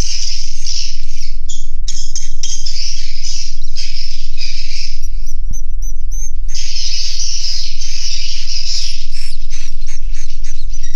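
A dense chorus of edible-nest swiftlets chirping and twittering inside a swiftlet nesting house. It thins out briefly about halfway through, then swells again.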